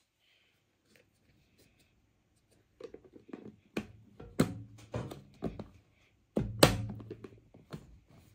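Plastic screw-on lid being fitted and twisted onto a glass jar: a series of knocks and scraping clicks starting about three seconds in, the loudest knock near the three-quarter mark.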